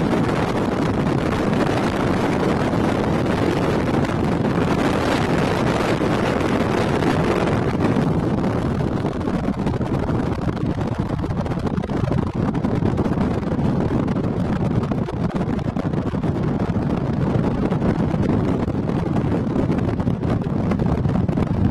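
Steady road and wind noise of a car driving at speed, heard from inside the car, with more hiss in the first several seconds.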